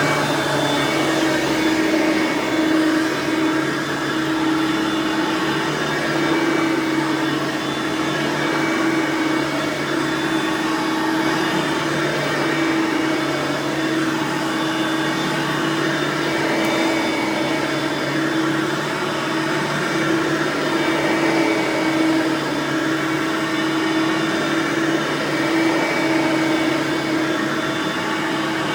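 Hoover Platinum Collection lightweight bagged upright vacuum (model UH30010) running steadily, a constant low tone over the rush of air.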